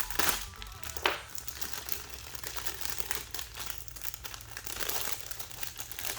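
Crinkling of a thin plastic parts bag being handled and opened to take out a model kit's plastic runners. There are a couple of sharp louder crackles about a second in.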